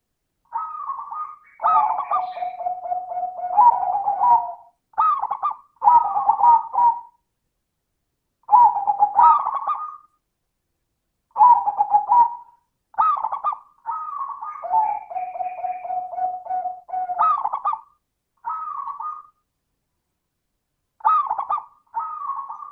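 Zebra dove (perkutut) singing its cooing song: phrases of quick rolling coos separated by short pauses. Twice, about two seconds in and again around fifteen seconds in, a phrase ends in a long held low coo.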